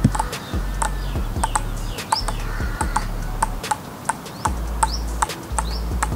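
Table tennis balls bouncing on paddles: two players keep their balls up, alternating forehand and backhand, giving light, irregular taps two to three times a second. Birds chirp briefly now and then.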